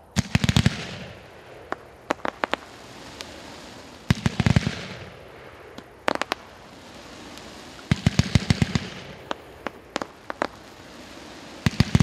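A "Glitter Waterfall" fireworks cake firing. About every four seconds a volley of launches goes off with a low thump and several sharp bangs, and single sharp pops from the bursting shells come in between.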